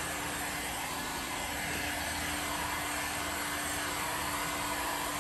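Handheld heat gun blowing steadily with a constant hum, drying freshly applied coloured stain on wood panels.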